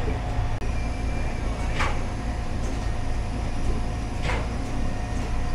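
Chip production-line conveyor machinery running with a steady low hum and a constant tone, and a short hiss about every two and a half seconds, twice.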